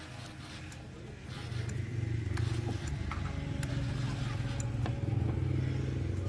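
A machine's motor running steadily with a low hum, getting louder about a second in, with light metallic clicks and clinks over it.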